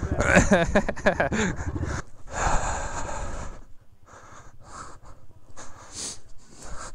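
Dirt bike engine revving up and down as the bike carries two riders across the field. It cuts off abruptly about two seconds in, followed by a burst of breathy noise and a few short, fainter breath-like puffs.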